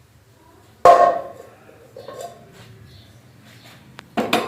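A metal kitchen utensil set down or knocked with a single loud clank about a second in, ringing briefly, then quiet household background; another sharp knock comes near the end.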